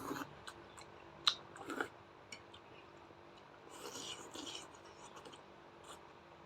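A person chewing food with wet mouth sounds and sharp little clicks and smacks, the loudest about a second and a half in, and a longer stretch of chewing around four seconds in.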